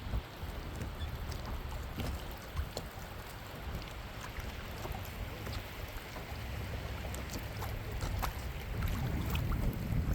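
Fishing boat on open water: a steady low rumble with water noise and wind on the microphone, broken by scattered small ticks.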